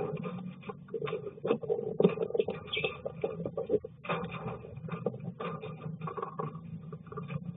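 Irregular clicks and scratches of a lovebird shifting on straw nesting material and the wooden floor of its nest box, over a low background murmur, heard through the box camera's small microphone.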